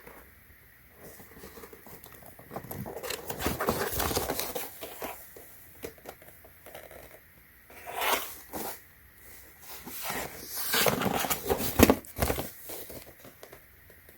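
Keyboard box and packaging being handled and opened: rustling and scraping in several bursts, the longest a few seconds in and another about two-thirds of the way through.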